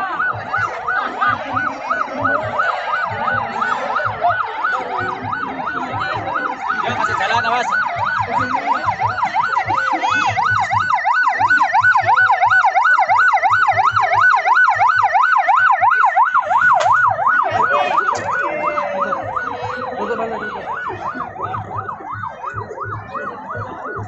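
Ambulance siren on a fast yelp, its tone warbling rapidly up and down. It grows louder to a peak around the middle, then fades as the ambulance moves on.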